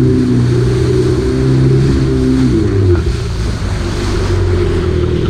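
Yamaha WaveRunner's four-stroke engine running at speed, its pitch shifting a little about halfway through, over the rush of water and spray off the hull.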